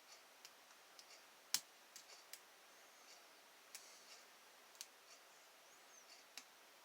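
Faint, irregular clicks of a lock pick and tension wrench working the pins of an ILCO seven-pin lock, with one sharper click about a second and a half in.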